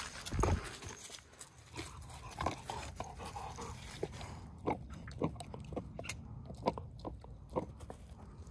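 Dog chewing and biting on a rubber ball: irregular crunches and clicks of jaws and rubber, with a low thump about half a second in.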